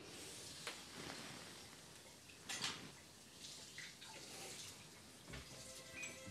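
Faint household sounds: water running from a tap with a few sharp clicks and clinks like crockery being handled. Soft music tones come in near the end.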